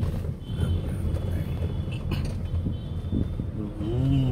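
Steady low rumble of a car's engine and tyres heard inside the cabin while driving. Near the end a person's voice draws out a vowel.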